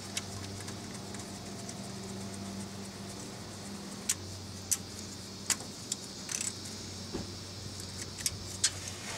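A handful of sharp, irregular metallic clicks and clinks, about eight in the second half, from a hand tool working at the radiator drain fitting under a 2002 Saturn SL2. A steady low hum runs underneath.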